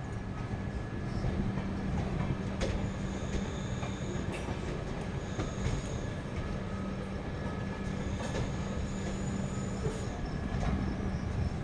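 Passenger train of LHB coaches running through a station: a steady rail rumble, with thin high wheel squeal coming and going and a few sharp clacks over the rail joints.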